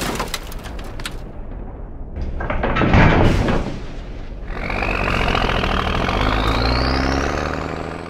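Cartoon sound effects: a rattling clatter of tumbling bones for about a second, a heavy thunk about three seconds in, then a truck engine running with a whine that rises steadily as the truck pulls away, cutting off sharply.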